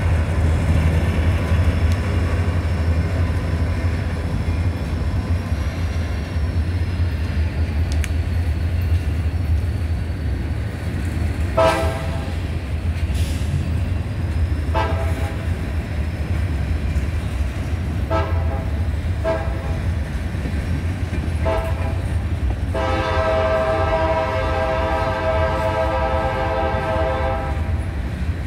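CSX freight train cars rolling through a grade crossing with a steady low rumble of wheels on rail. From about twelve seconds in, the locomotive's horn sounds several short blasts, then one long blast of about five seconds near the end.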